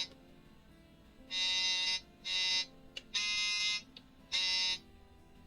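Roland Aerophone Mini digital wind instrument playing a halting phrase of four separate notes, each under a second long, in a bright, sax-like synthesized tone, with a faint lower tone between them.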